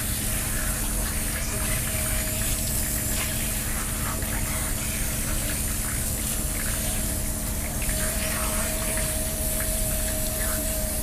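Water running steadily from a garden hose, splashing over a wet puppy and onto a concrete floor, with a faint steady whistle.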